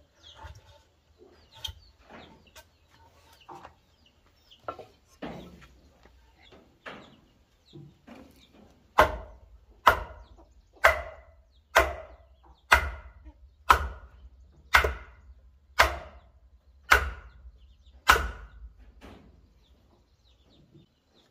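Wooden mallet knocking a timber tie beam's notched end onto a round wooden post, seating the joint tight. After some lighter, irregular knocks, about nine seconds in come ten hard blows, about one a second.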